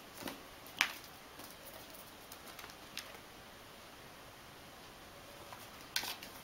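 A kitten's paws landing on carpet and rug as it hops sideways with its back arched, giving a few soft taps. The sharpest tap comes about a second in, another at about three seconds, and a quick cluster of taps near the end.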